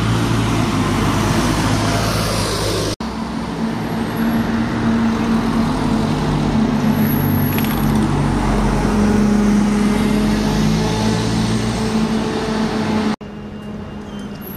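Diesel single-deck buses running close by, pulling away and passing with a steady engine note over road noise. The sound cuts off abruptly twice where the footage changes shot.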